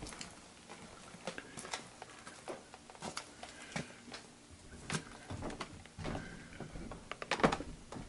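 Handling noise and footsteps from someone moving around with a handheld camera: scattered light clicks and knocks, loudest in a short cluster about seven and a half seconds in.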